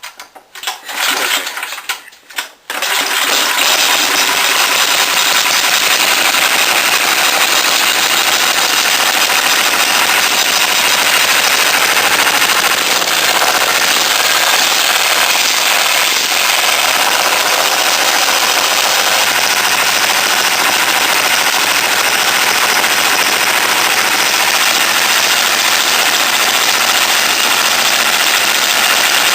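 Go-kart engine being started: a few short spurts, then it catches about three seconds in and keeps running loud and steady.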